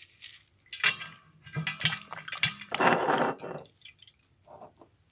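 Wet scouring pad rubbing a soapy penny, with water splashing and dripping into a metal bowl; the loudest splash comes about three seconds in as the penny is rinsed.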